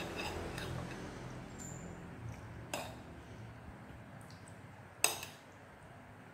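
A metal spoon clinking against a ceramic plate during a meal: a light clink about three seconds in, then a sharper, louder one about five seconds in.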